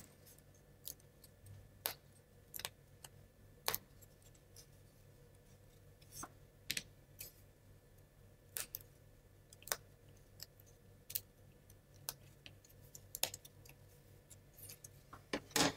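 Irregular light clicks and taps of laser-cut plywood model-kit sheets being handled and searched for parts, with a louder wooden click near the end.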